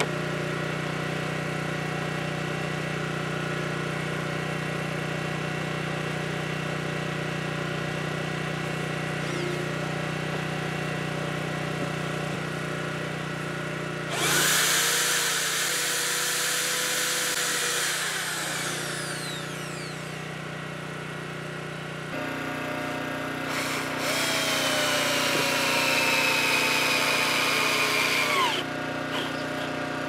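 Electric drill boring holes through a downhill ski. A steady motor hum is followed by two louder spells of drilling, about halfway through and again near the end, with the pitch falling as the bit bites.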